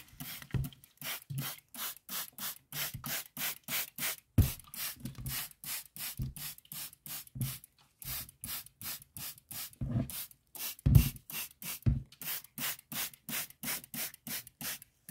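Hand-held trigger spray bottle misting water over the moss and substrate of a snail enclosure to keep it moist: quick, even squirts, about three a second, each a short hiss. A few dull knocks come among them, the loudest about eleven seconds in.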